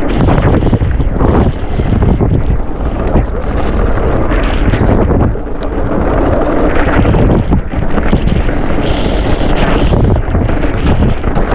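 Wind buffeting the microphone while a mountain bike rides a wet trail, with steady low rumble from the ride and many small knocks and rattles over rough ground.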